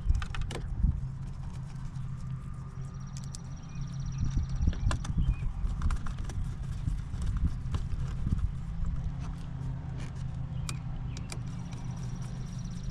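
Scattered plastic clicks and knocks of steering-wheel trim and the cruise-control switch being handled and fitted, over a steady low hum.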